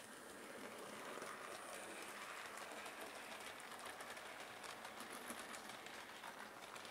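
Model railway train running along the track: a faint steady rolling whirr with rapid fine clicking, getting louder about a second in as the coaches pass close by.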